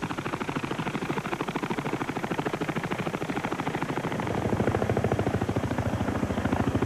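CH-46 Sea Knight tandem-rotor helicopter close by, its rotor blades beating in a rapid, even thudding that grows louder about two-thirds of the way through.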